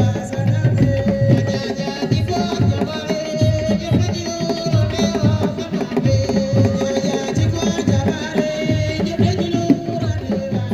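Music of hand drums beating a steady, driving rhythm, with long held notes sounding over the beat.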